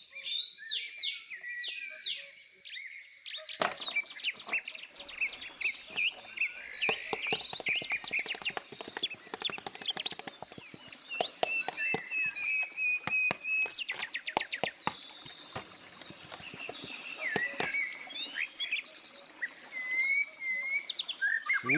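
Songbirds chirping and trilling, with many small clicks and taps joining in from about four seconds in.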